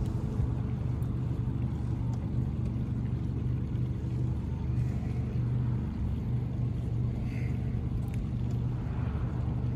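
Boat motor running with a steady, unchanging low drone.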